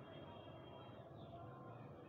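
Near silence: faint steady background noise, with no distinct sound.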